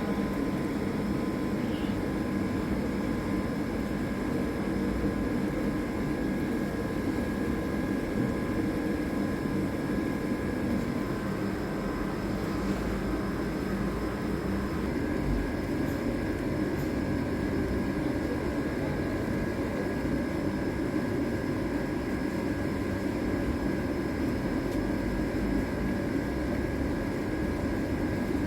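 A steady mechanical drone, a low rumble with a few constant whining tones above it, unchanging throughout.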